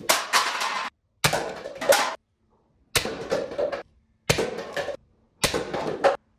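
Toy foam-dart blaster shots hitting stacked paper cups, five times in a row: each a sharp pop followed by the clatter of cups and a can knocked over, each cut off short.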